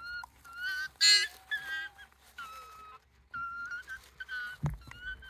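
Japanese raccoon dog (tanuki) pups whining: a string of short, high whistle-like whimpers, one much louder about a second in. A low thump near the end.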